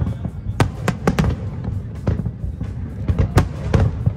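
Aerial fireworks shells bursting in a rapid, irregular series of sharp bangs, about ten in four seconds, over a continuous low rumble.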